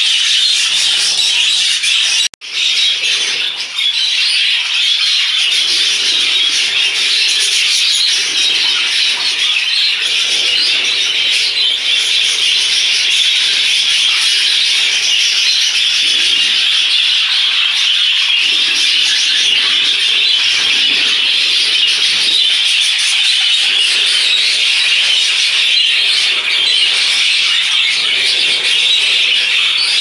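A large flock of English budgerigars chattering all at once in a dense, steady din, with a momentary dropout about two seconds in.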